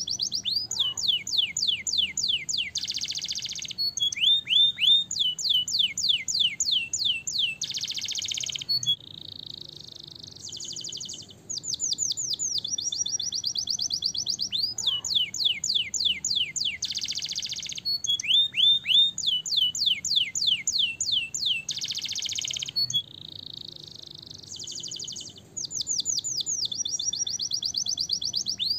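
Domestic canary singing: long rolls of fast, rapidly repeated falling notes, broken by harsh buzzy phrases and two short softer passages. The same sequence of phrases comes round again about every fourteen seconds.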